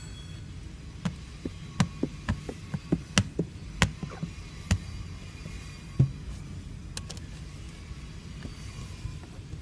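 Scattered sharp taps and clicks, about a dozen in the first six seconds, from a scrub pad and hands working against the inside of a car windshield as the glass is cleaned for tint film. After that only a steady low background noise.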